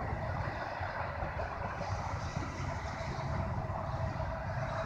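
EN57 electric multiple unit running away down the line, a steady rumble and hiss.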